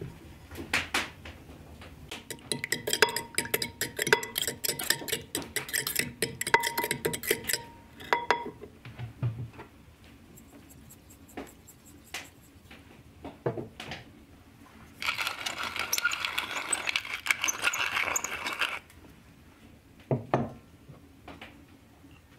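A fork whisking raw eggs in a glazed ceramic bowl: rapid clinking strokes of the fork against the bowl in two long bouts, the second louder, with scattered single taps between them.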